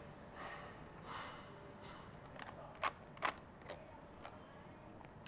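Soft chewing, then a plastic fork clicking and scraping against a clear plastic takeaway box while scooping up sticky rice: a handful of sharp little clicks from about halfway through, the two loudest close together.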